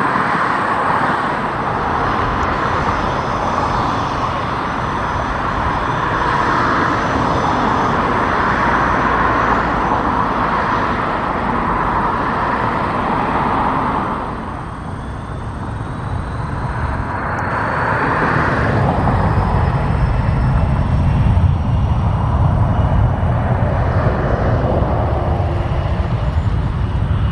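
A CRJ regional jet's rear-mounted turbofans running at high power on the runway, a steady jet roar. After a cut about halfway, a Bombardier Challenger business jet's engines spool up on the runway: a turbine whine climbs slowly in pitch while a deep rumble builds and holds.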